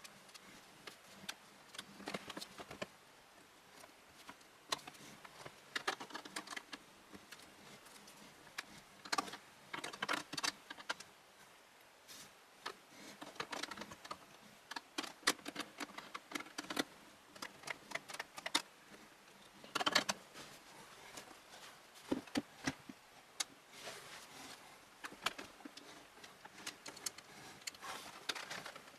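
Hands working PC fans and parts into a computer case: irregular small clicks, taps and short rattles, in clusters with pauses between them.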